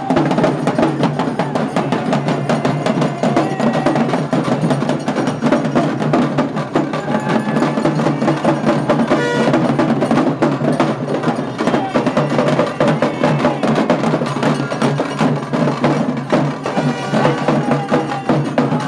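Loud, fast percussion playing without pause, sharp rapid strokes mixed with ringing metallic clangs, over a crowd of shouting voices.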